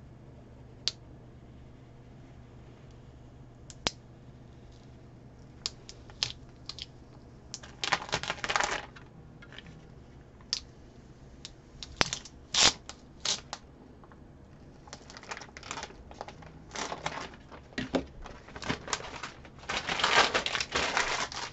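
Transfer tape being peeled off vinyl lettering on a ceramic tile: scattered sharp clicks and short crinkling, rasping stretches, busiest near the end.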